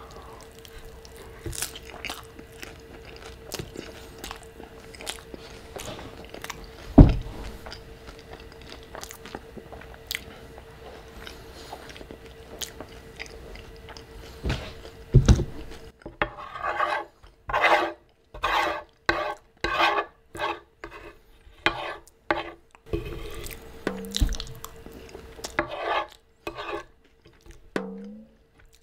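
Close-miked chewing of a crunchy loaded tostada: crisp crackles and clicks from the fried tortilla shell, broken by two heavy thumps, then a steady wet chewing rhythm of about two chews a second. Near the end a fork scrapes on the wooden board.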